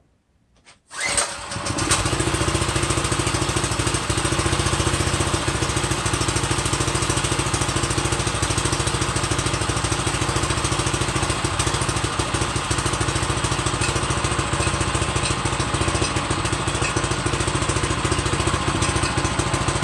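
Small single-cylinder gas engine on a walk-behind tiller pull-started on full choke, catching almost at once about a second in, then running steadily at idle.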